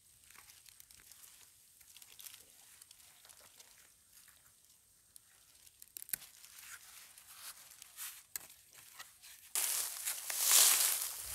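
Gloved hands scraping and pulling at loose, root-tangled soil while digging out a wild yam tuber, a faint crumbling and scratching. About nine and a half seconds in, a much louder crackling rustle begins as someone pushes through tall dry grass.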